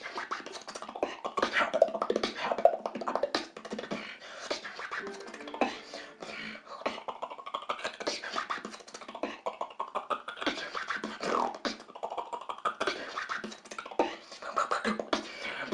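Beatboxing: rhythmic mouth-made kicks, snares and hi-hat clicks with vocal sounds, coming through Ventrilo voice chat, so it sounds thin with no bass.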